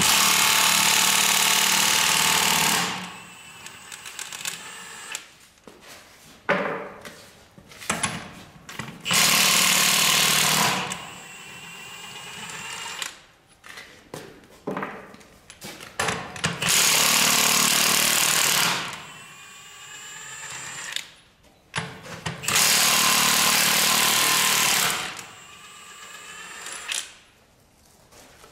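Impact wrench (nut gun) hammering on the sprayer's wheel nuts in four bursts of two to three seconds each, with quieter clanks in between.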